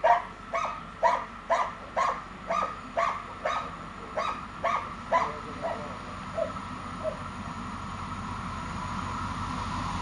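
A dog barking about twice a second, a dozen or so barks that grow fainter and stop about seven seconds in. Underneath, the steadily rising sound of an approaching freight train: a Croatian Railways (HŽ) class 2062 diesel locomotive hauling Eas open wagons.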